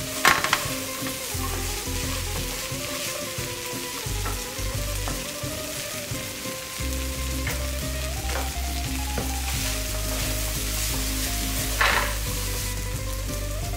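Fried rice and bean sprouts sizzling in a hot nonstick frying pan while being stirred and tossed with a wooden spatula, with a couple of sharper scrapes of the spatula against the pan.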